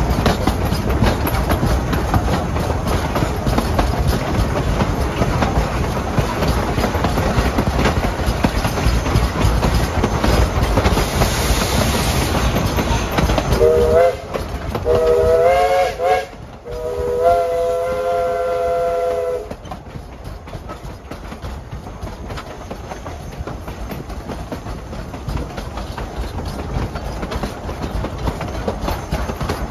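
East Broad Top No. 16, a narrow-gauge 2-8-2 steam locomotive, heard from the train behind it. The wheels rumble and clatter on the rails, then about fourteen seconds in its chime steam whistle sounds three times, a short, a medium and a long blast. After the whistle the running noise is quieter.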